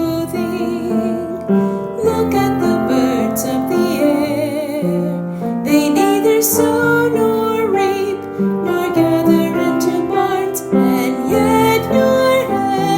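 Gentle song: a woman singing over piano accompaniment.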